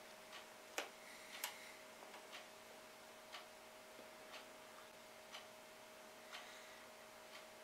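Faint clock ticking about once a second over a steady low hum, with two louder clicks about a second in.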